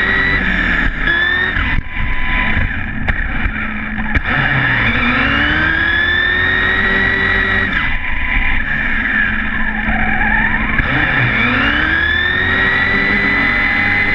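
Brushless electric motor and drivetrain of a 1/8-scale electric RC buggy (Tenshock x802, 2100 Kv) whining loudly, rising in pitch again and again as it accelerates, with a falling whine about nine seconds in as it slows. Steady tyre and road noise runs under it, heard from a camera mounted on the car.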